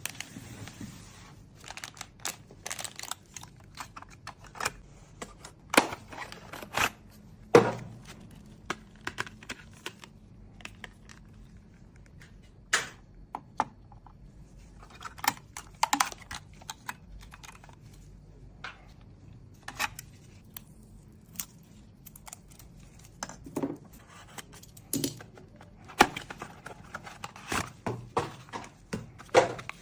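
Irregular clicks, taps and knocks of computer parts being handled and fitted together during a PC build, some sharp and loud, others light, with short quiet gaps between.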